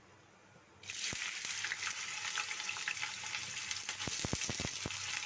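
Sliced onions dropped into hot oil in a stainless steel kadai, bursting into a sizzle about a second in and frying with a steady hiss. A few sharp clicks near the end.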